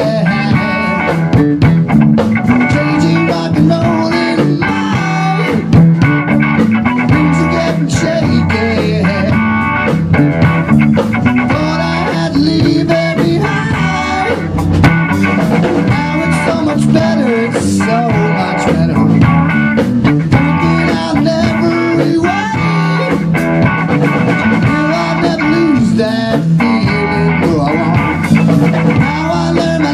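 Live band playing electric guitar, bass guitar and a Tama drum kit together, a steady groove with the guitar notes bending.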